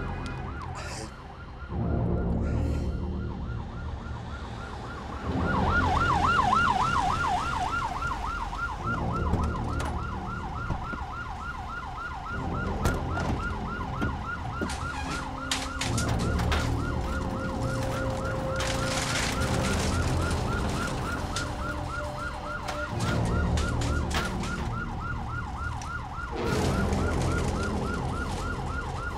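Ambulance siren sounding in a fast, steady warble, clearest about five seconds in, over low sustained droning tones and a scattering of clicks and knocks.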